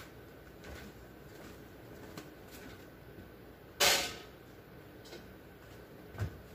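A glass refrigerator shelf clatters sharply once as it is set in place, about four seconds in, with a short ringing tail. A softer, duller knock follows near the end.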